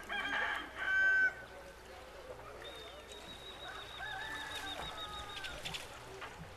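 Outdoor village ambience with a rooster crowing, one rising-then-falling crow about four seconds in. A loud pitched call comes near the start, and a thin high steady tone runs from about three seconds.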